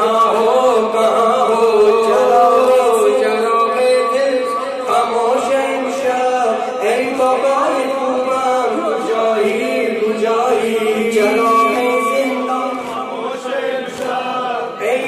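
A man singing a noha, a Shia lament, into a microphone in long held, wavering lines, with a group of mourners chanting along.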